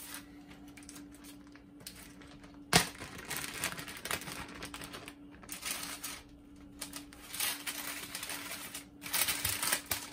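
A plastic zip-top freezer bag crinkling and rustling as it is handled and pulled open, in irregular bursts, with one sharp click a little under a third of the way in and busier crinkling near the end.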